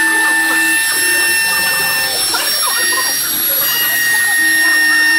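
Homemade CNC machine running, a steady high-pitched motor whine that steps slightly in pitch about two seconds in and again a little later.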